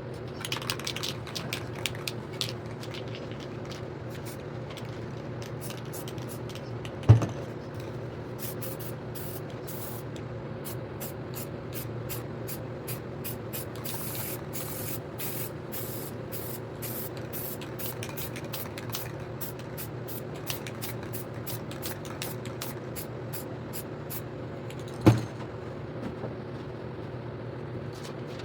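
Aerosol spray paint can being sprayed in many short hissing bursts, densest and longest in the middle of the stretch. Two sharp knocks come about 7 and 25 seconds in, over a steady low hum.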